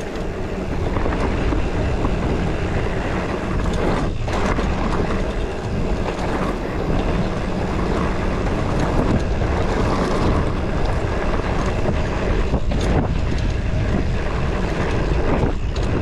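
Wind buffeting the microphone of a mountain bike rider heading downhill on a dirt trail, mixed with steady tyre and trail noise from the bike.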